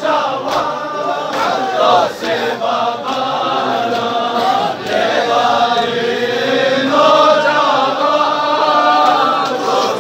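Crowd of men chanting a Balti nauha (Shia lament) together in long sung lines. Sharp slaps of hands beating chests (matam) keep a beat about once a second during the first few seconds.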